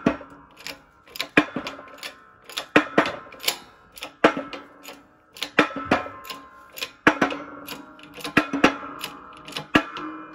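Shop press working a new needle bearing into the aluminium Eaton supercharger housing through a copper tube and puck: sharp metallic clicks, mostly in pairs about every second and a half, each with a brief ringing.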